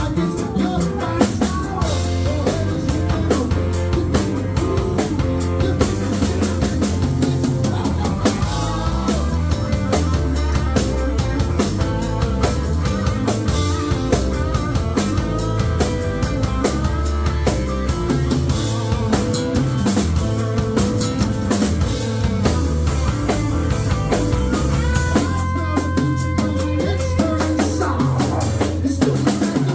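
Rock band playing live: drum kit, bass guitar and electric guitar in an instrumental passage with no vocals.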